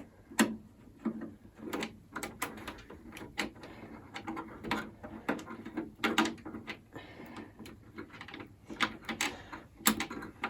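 A rusty hand screwdriver turning a screw out of an iMac G3's case: irregular clicks and scrapes, a few a second.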